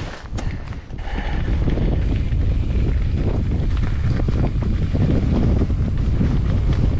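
Strong wind buffeting the action-camera microphone as a heavy low rumble, getting louder about a second in, with many quick rattles and knocks from a hardtail mountain bike riding over rough trail.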